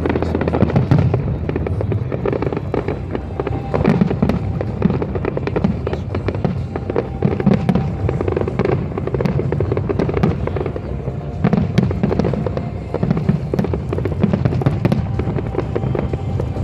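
Fireworks display: a dense run of rapid bangs and crackling over a continuous low rumble.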